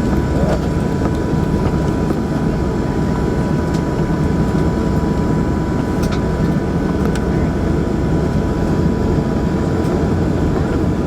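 Embraer 120 Brasilia's twin turboprop engines running, heard inside the passenger cabin: a loud, steady drone with a constant high whine over it.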